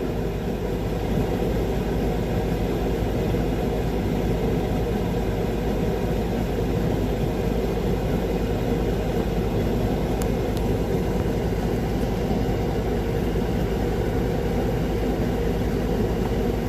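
Heavy diesel engine idling steadily, a low even rumble that does not change.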